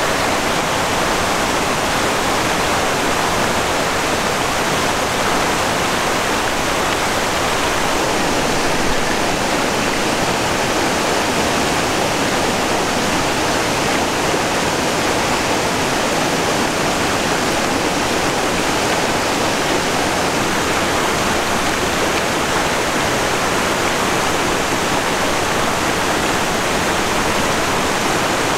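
Rushing water from the falls and stream below a reservoir dam: a steady, even rush with no breaks.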